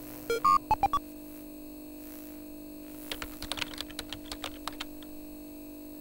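Retro computer boot-up sound effects: a few short electronic beeps at the start over a steady low hum, then a run of rapid keyboard typing clicks from about three to five seconds in.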